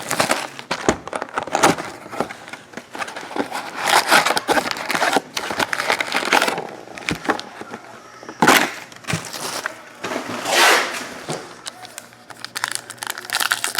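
Trading-card pack wrappers being torn open and crinkled, with cards rustling and clicking as they are handled; irregular crackling, with louder rips or swishes about eight and a half and ten and a half seconds in.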